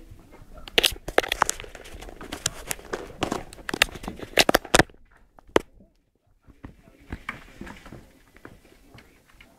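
A kitten's paws and claws scratching and tapping right against the camera, a quick run of sharp clicks and scrapes. It stops about five seconds in, with one more click after, then fainter clicks follow.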